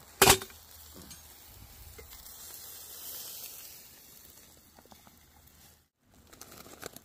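Quarter-pound burger patties sizzling on a Smoky Joe charcoal grill, with a sharp click about a third of a second in, the loudest sound heard. The sizzle fades away after about four seconds, and a few faint taps come near the end.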